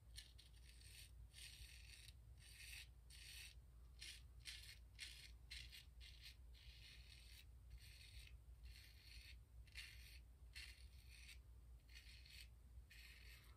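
Ever Ready 1914 single-edge safety razor scraping through lathered stubble on the neck in short, faint strokes, about two a second.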